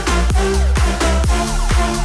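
Background electronic dance music with a steady, fast kick-drum beat over a sustained bass line.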